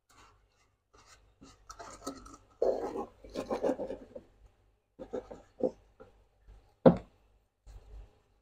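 Paintbrush scrubbing an aluminium motorcycle footrest bracket in alkaline soap solution, in short uneven strokes of brushing and scraping, with a wash of liquid. A single sharp knock about seven seconds in is the loudest sound.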